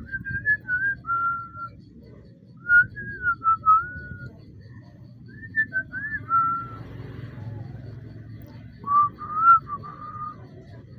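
A person whistling a tune in four short phrases with pauses between them, a single clear note gliding up and down.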